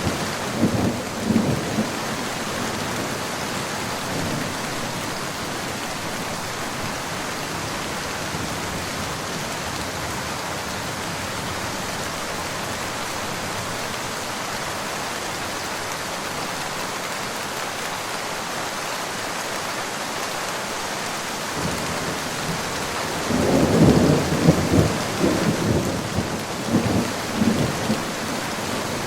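Steady rain falling, with thunder rumbling. One roll dies away in the first second or two, and another builds about three-quarters of the way through, rumbling unevenly for several seconds before fading back under the rain.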